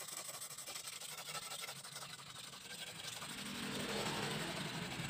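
A hand-held fine whetstone scrapes in quick strokes along the steel blade of an egrek, an oil-palm harvesting sickle. From about three seconds in, a motor vehicle's engine comes up and grows louder until it is the loudest sound.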